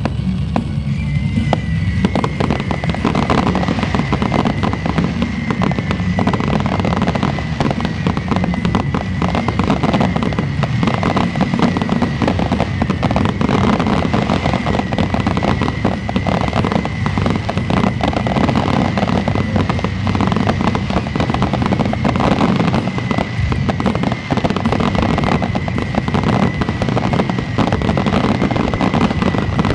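Fireworks display: a dense, continuous barrage of bangs and crackling, with a steady high whistle-like tone running through it from about a second in.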